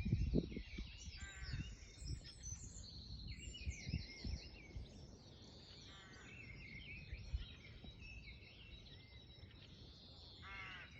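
Several songbirds singing and chirping, with short trills, while wind gusts on the microphone in low rumbles.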